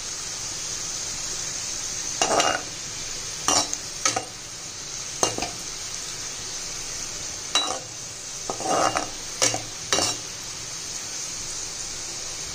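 Sliced onions sizzling steadily in hot oil in a kadai, frying nearly to golden brown, with a metal spatula now and then scraping and clinking against the pan as they are stirred.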